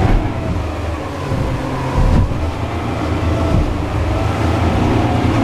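Fast boat's engines running steadily at speed, heard inside the cabin, with the hull thudding on a wave about two seconds in.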